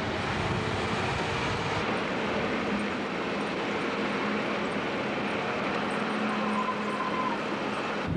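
Steady engine and road noise of a moving vehicle, with a faint low hum running through it.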